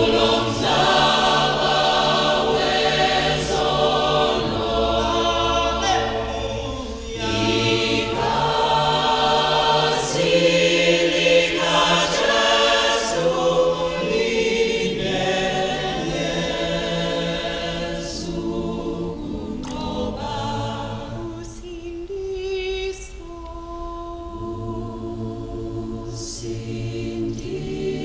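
Mixed choir of men's and women's voices singing a cappella in harmony, getting quieter in the second half.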